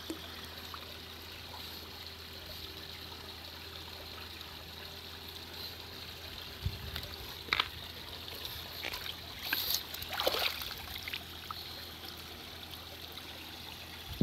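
Shallow water trickling steadily over stones, with a cluster of splashes midway through as a pug paddles and climbs out onto the rocks.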